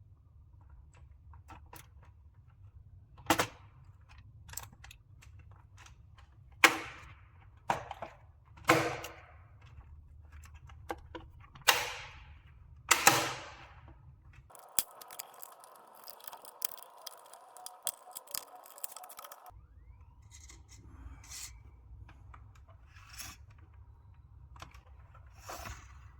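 Sharp clicks and knocks of computer parts being handled and fitted, six louder ones in the first half. Near the middle comes a few seconds of steady rushing noise.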